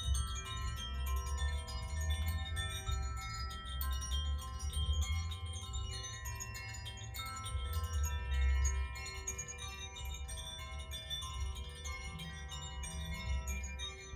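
Koshi and Zaphir chimes ringing together, set in motion again and again so that many light strikes and long, overlapping ringing tones blend into a continuous shimmer. A low rumble runs underneath.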